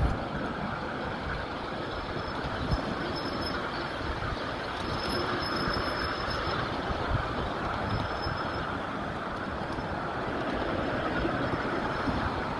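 Ride-on 1/8-scale miniature train rolling along its track: a steady rumble of small steel wheels on rail, with an occasional sharp click and a faint high squeal now and then.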